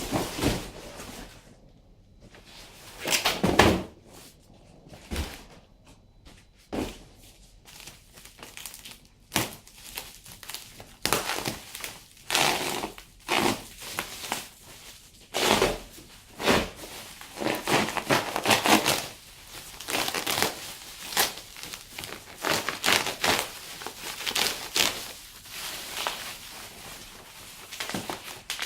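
Packing material crumpling and tearing in irregular bursts, with a few knocks as something is handled.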